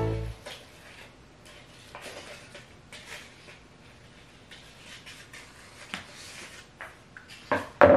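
Faint rustling and crinkling of a sheet of paper being handled, folded and cut with scissors, with scattered small snips and taps. A louder short burst of handling noise comes near the end.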